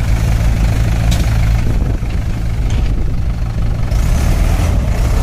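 Mahindra 585 DI tractor's four-cylinder diesel engine running at a steady speed with a deep, even rumble.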